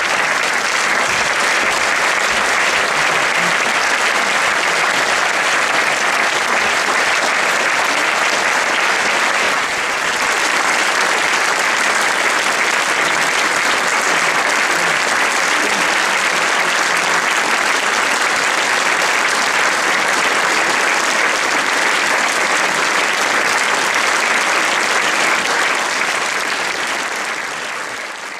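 Theatre audience applauding steadily, a dense sustained clapping that fades out near the end.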